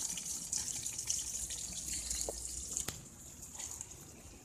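Running water, a steady hissing spray with scattered drips and two sharp clicks about two and three seconds in; it grows quieter in the last second and a half.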